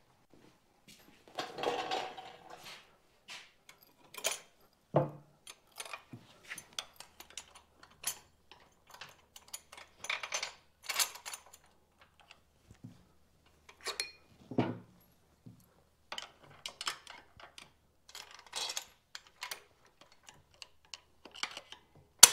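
Small metal clinks and clicks of nuts, washers and bolts being handled and threaded onto motorcycle engine mounting bolts, with a few duller knocks and one sharp click near the end.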